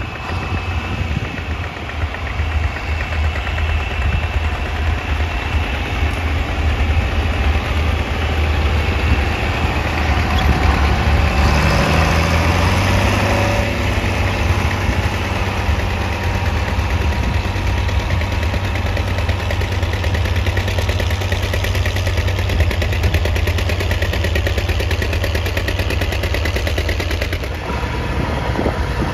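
John Deere 4020 tractor's inline six-cylinder engine running steadily under load while pulling a moldboard plow through the soil. Its note climbs once over a few seconds about halfway through.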